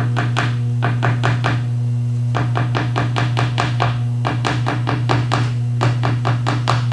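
Energized Magnaflux yoke humming steadily while it magnetizes the cast iron for crack detection, with quick runs of short puffs and taps from a squeeze-bulb powder applicator dusting magnetic powder over the crack, pausing briefly twice.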